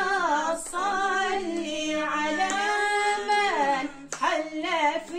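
A woman's voice singing unaccompanied in Arabic, with long held, wavering notes and short breaths between phrases.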